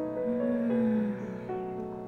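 Background music played on piano: slow, held notes changing about every half second.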